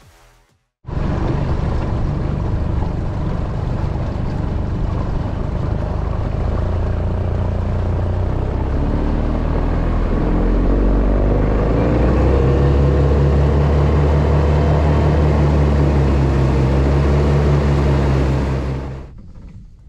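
Skiff's outboard motor running with the boat under way, along with the rush of wind and water. The engine note climbs as the throttle is opened about halfway through, then holds steady at the higher speed. It starts suddenly about a second in and cuts off near the end.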